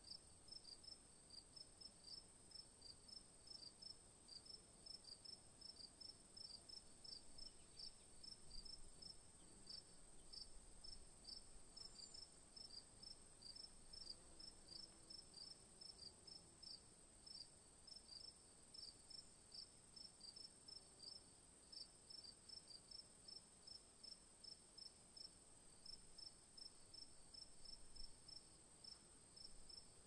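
Faint, regular chirping of a cricket, about two chirps a second, over a steady thin high whine.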